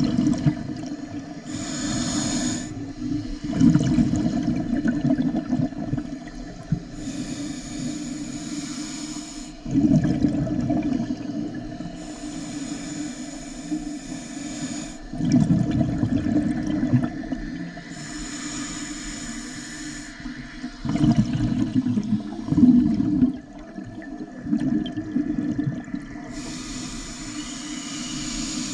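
A scuba diver breathing through a regulator underwater, five breaths. Each one is a short hissing inhale followed by a low, gurgling burst of exhaled bubbles.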